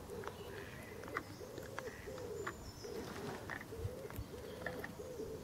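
A pigeon cooing: a steady run of short, low, hooting notes, about two a second.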